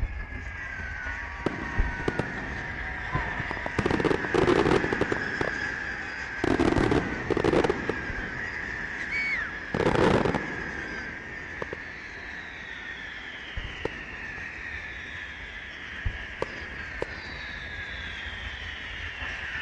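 Fireworks going off: whistling tones that glide down in pitch run throughout, with three loud bursts around 4, 7 and 10 seconds in and scattered sharp pops.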